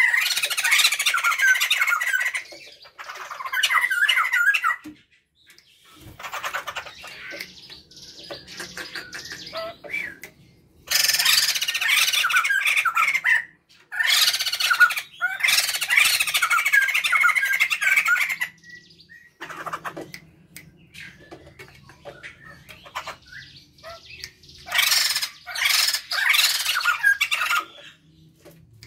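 A male and female Sumatran laughingthrush (poksay jambul) calling together in loud bursts of chattering calls, each lasting a few seconds. Quieter, scattered calls come in the gaps between bursts.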